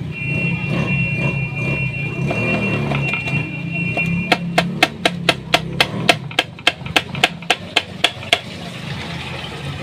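A quick, even series of about fifteen sharp taps, roughly four a second, starting a little before halfway and stopping near the end. Before them a steady high double tone sounds over a low background rumble.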